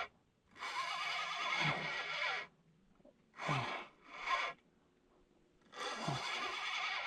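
Fishing reel being cranked in four bursts of rasping, whirring retrieve with pauses between, two of them short, reeling in a small hooked catfish.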